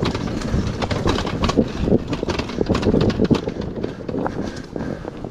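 Enduro dirt bike ridden over rough ground: the engine running under a dense, irregular clatter of knocks and impacts.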